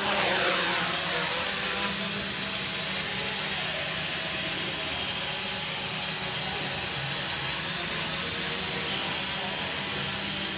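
Quadcopter's four electric motors and propellers running fast with a high-pitched whine as it lifts off and hovers. The whine slides down in pitch over the first few seconds, then holds steady.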